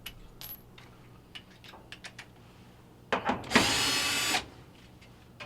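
Power drill running for just under a second near the end, backing out a 1/4-inch screw. Before it come a few light clicks and a short rattle of tool handling.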